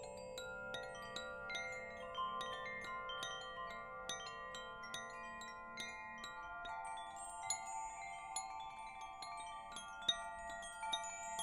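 Wind chimes ringing, the bars struck at random several times a second, each note ringing on so that many tones overlap.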